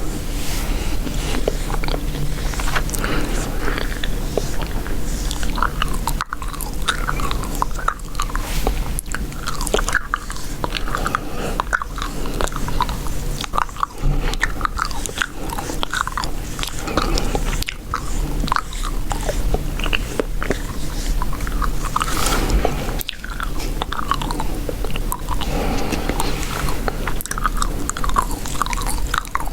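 Chewing gum chewed close to the microphone: a continuous run of small wet clicks and crackles.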